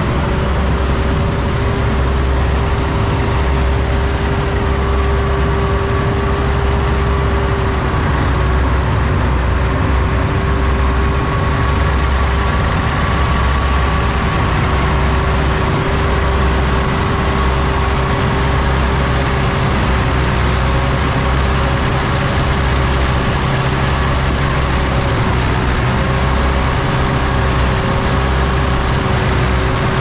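Heavy engine running steadily at constant speed, a low drone with a steady whine above it.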